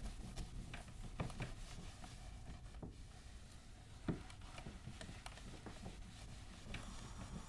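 Chenille microfiber mitt wiping a whiteboard: faint rubbing with soft, scattered knocks, and one sharper knock about four seconds in.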